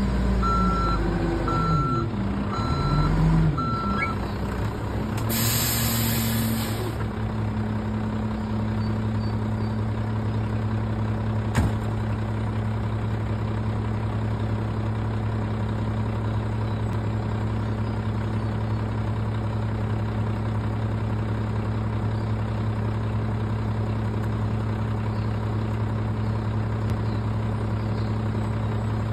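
Rear-loading garbage truck reversing, its backup beeper sounding in even beeps for about the first four seconds. Then a loud hiss of air brakes as it stops, and the truck's engine idling steadily for the rest.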